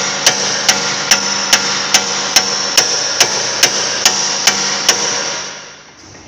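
Hammer blows on metal on a car's front suspension, evenly paced at about two and a half a second, with the metal ringing between strikes. The blows stop about five seconds in and the ringing fades.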